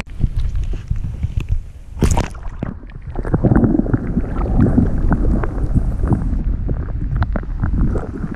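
Water splashing about two seconds in, then muffled rumbling and gurgling of river water heard by a submerged action camera, the high sounds cut away while it is under the surface.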